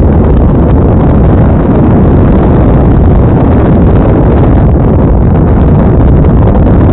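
Loud, steady rush of wind over the microphone of a hang glider in an engine-off glide under a Tecma Medil wing.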